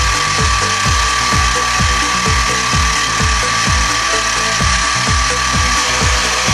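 Sieg X2 CNC mini mill running, its spindle motor whining steadily while the end mill cuts a metal plate, with a regular low pulsing about three times a second.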